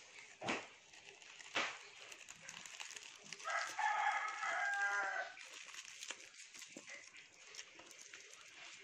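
A rooster crows once, a single call of under two seconds starting about three and a half seconds in. Around it, cellophane candy wrappers crinkle under the hands, with two sharp crackles near the start.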